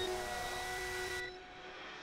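Film sound-design drone: a rushing, hissing rumble with several held tones, like a passing aircraft, that cuts off sharply about a second in, leaving a quieter lingering tone.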